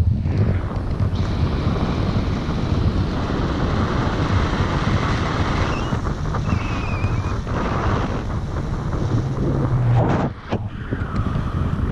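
Wind rushing over an action camera's microphone during a paraglider flight, a loud steady buffeting that drops briefly a little over ten seconds in.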